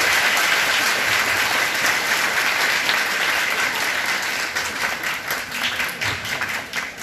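Audience applauding, dense at first and thinning out into separate claps toward the end.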